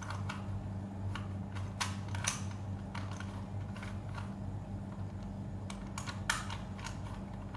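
Plastic clicks and clacks of a stiff 3x3 Rubik's cube being turned by hand during a solve, coming in irregular bursts. The cube is not a speed cube and its layers turn roughly, which its owner calls really rusty.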